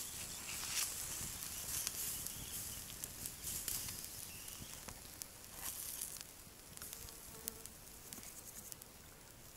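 Pork ribs on metal skewers sizzling over campfire embers: a steady hiss full of small crackling pops, dying down over the last few seconds.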